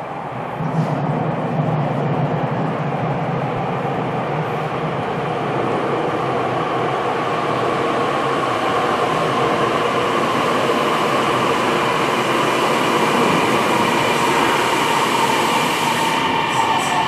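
Tokyu 7000 series electric train approaching through the tunnel into an underground station, its rumble growing steadily louder as it nears. A steady whine rises over the rumble in the second half as the train comes in along the platform.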